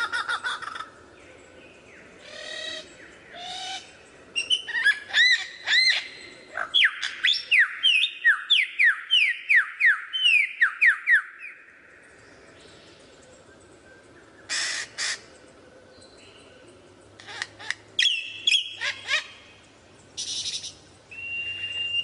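A samyong songbird singing a varied song: chattering notes at first, then a quick run of sweeping whistled notes, about two a second, for several seconds. After a pause come short harsh bursts and one held whistle near the end.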